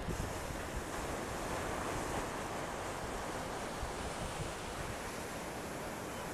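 Ocean surf, with waves breaking and washing in as a steady rushing noise. Wind buffets the microphone, adding a low rumble.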